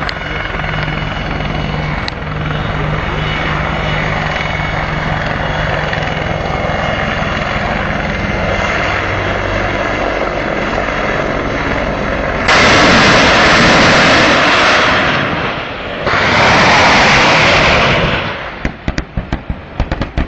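AH-64 Apache attack helicopter flying past low, its rotor and turbine sound steady. About twelve seconds in, two loud rushing noises of a couple of seconds each break in. In the last two seconds a rapid string of sharp cracks begins.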